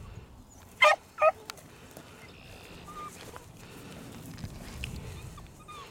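Beagle giving two short, sharp barks about a second in, close together; otherwise only faint outdoor background.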